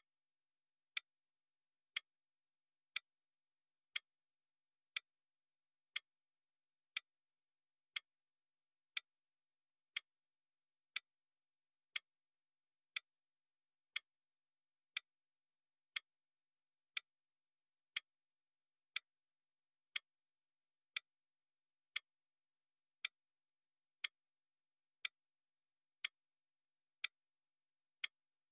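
Countdown timer's clock-tick sound effect: one sharp tick every second, with silence between the ticks.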